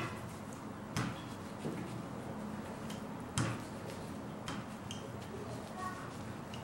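A few short, sharp clicks and taps of a spatula and knife against a frying pan and the work surface as chicken filling is spooned out, over a low steady hum.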